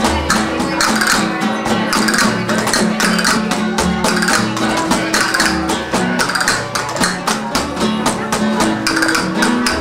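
Live flamenco music: two acoustic guitars strumming and picking fast, with deep hand-struck cajón beats underneath.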